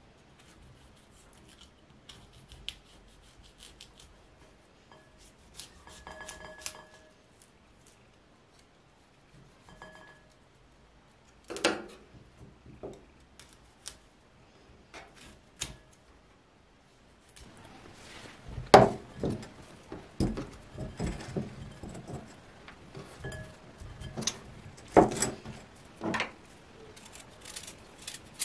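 Kitchen knife cutting florets off a head of broccoli on a wooden cutting board: scattered crisp cuts and taps of the blade on the board, with a few short squeaks. The cuts come thicker and louder in the second half.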